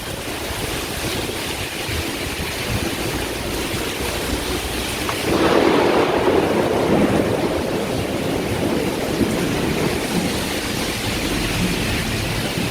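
Heavy tropical downpour: a steady hiss of rain pouring down, growing louder for a couple of seconds about five seconds in.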